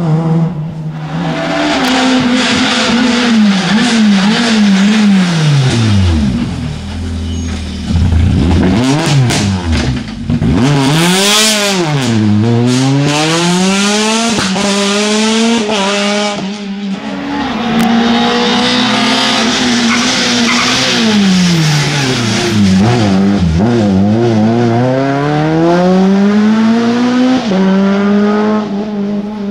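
Rally cars driven flat out on a tarmac special stage, passing one after another, their engines revving hard. The pitch climbs and drops sharply again and again as the drivers change gear, brake and accelerate.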